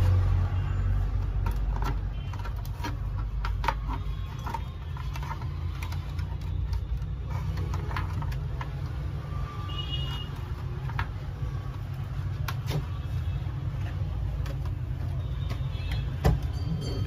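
Scattered light clicks and taps of plastic parts and a wire connector being handled as an induction cooker's work coil and ribbon cable are fitted back into its casing, with a louder knock near the end. A steady low rumble runs underneath.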